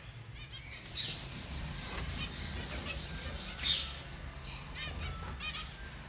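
Small aviary finches calling with many short, high chirps, some in quick runs, and the brief flutter of wings as they fly about the cage.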